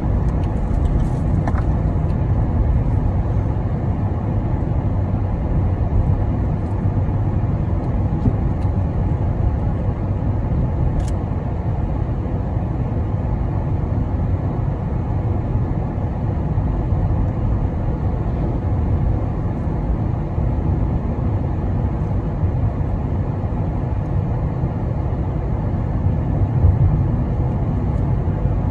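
Steady road and engine noise of a moving car heard from inside the cabin, mostly deep and even, with no changes in pace.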